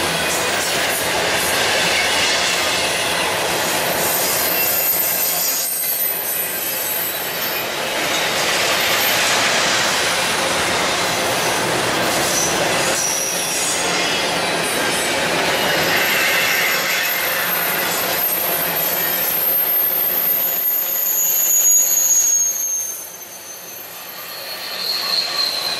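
Double-stack intermodal well cars rolling past close by: steady noise of steel wheels on rail with high-pitched wheel squeals that come and go, one falling squeal a few seconds before the end. The rolling noise eases briefly just before the last squeal.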